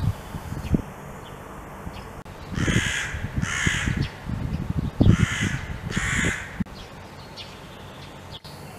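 A crow cawing four times in two pairs, each caw harsh and about half a second long.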